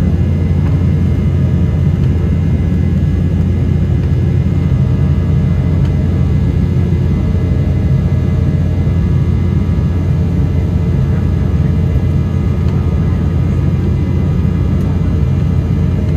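Steady cabin noise inside an Embraer 195 airliner in flight after take-off: the constant rumble of its CF34 turbofan engines and the airflow, with faint steady tones above it.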